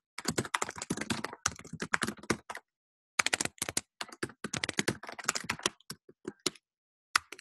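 Rapid typing on a computer keyboard: quick runs of key clicks with a brief pause about two and a half seconds in, then a few last taps near the end.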